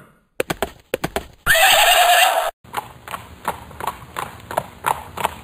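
A horse whinnying loudly for about a second, starting about a second and a half in, with hoofbeats clip-clopping before it and at a steady rhythm after it.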